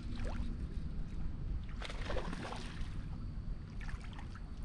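Water lapping against a bass boat with wind rumbling on the microphone. About two seconds in there is a burst of splashing as a hooked largemouth bass thrashes at the surface beside the boat.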